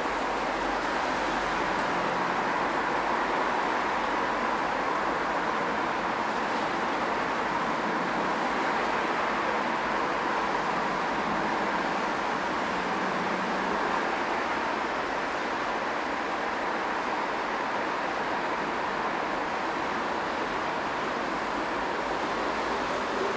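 Steady, unbroken traffic noise heard inside a tiled pedestrian underpass, with a faint steady tone running through it.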